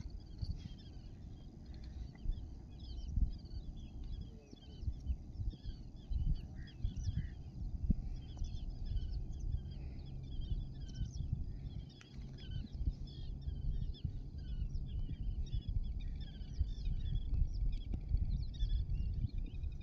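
Many small birds chirping and twittering together in a steady dawn chorus, over a constant low rumble.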